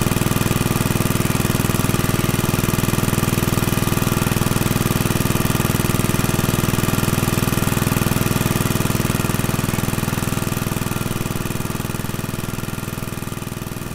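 BSA 300 watt ex-military generator set (a licence-built Johnson Chore Horse) running steadily under its small stationary engine, with an even, rapid firing beat. It grows fainter over the last few seconds.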